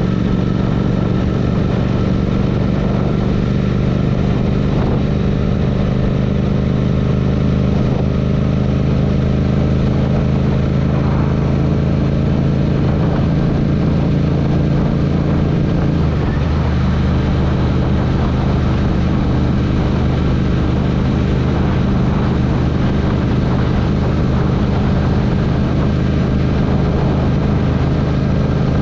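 Royal Enfield Interceptor's parallel-twin engine running steadily, its note shifting about halfway through.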